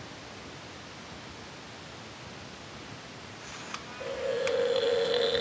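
Quiet room noise, then about four seconds in the animatronic Playskool Kota triceratops toy starts a sustained dinosaur call through its speaker when its chin is stroked, with a few small clicks from the toy around it.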